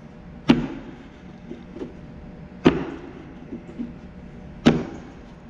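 Heavy thuds, one about every two seconds, each sharp at the start with a short ringing tail.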